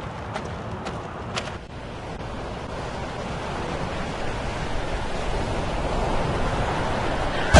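Ocean surf: a steady rush of breaking waves that slowly grows louder, with a couple of faint clicks near the start.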